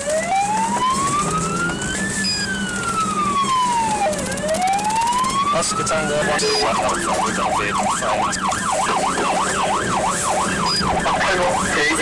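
Police car siren heard from the pursuing car itself: a slow wail rising and falling about every two seconds, switching about halfway through to a fast yelp of about three sweeps a second, over a steady low hum.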